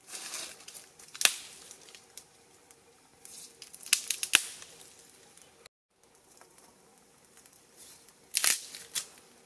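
A person blowing hard on a smoking wood fire to kindle it: breathy gusts in three spells, with a few sharp snaps from the burning sticks.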